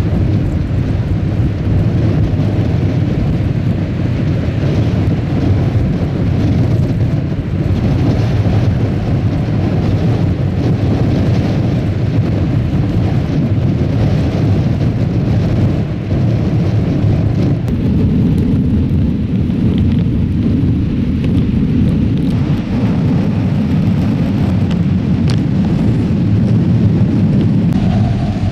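Strong wind buffeting the microphone in a steady low rumble, mixed with the wash of breaking surf.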